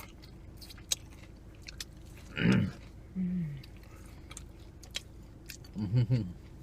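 Close-up chewing of fried potato taters: wet mouth clicks and smacks throughout. Short hummed murmurs break in about two and a half seconds in, again just after, and near the end.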